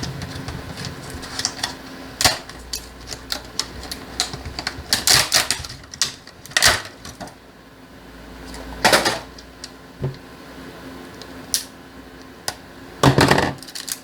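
Plastic tool packaging being handled and pried open by hand: irregular clicks and crackles with several louder crinkling bursts, the longest near the end.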